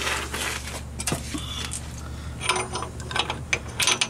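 Scattered metallic clinks and rattles of a socket, socket adapters and an inch-pound torque wrench being handled on a Dana 30 axle's pinion nut, busiest in the second half.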